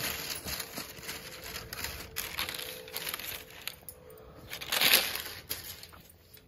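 Cotton fabric rustling as a white kurta is handled, unfolded and spread flat by hand, with a louder rustle about five seconds in.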